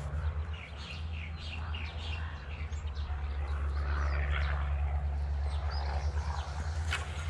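Birds chirping in runs of short calls over a steady low rumble.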